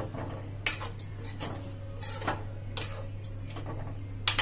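A metal spoon scraping and clinking against a metal kadai while green chillies are stirred into a thick masala: a handful of separate scrapes and knocks, irregularly spaced.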